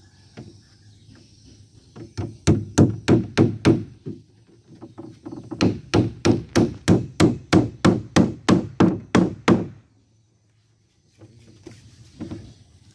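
Claw hammer driving nails into timber on a wooden boat frame: two runs of quick, evenly spaced blows at about four a second, a short run and then a longer one that stops about ten seconds in.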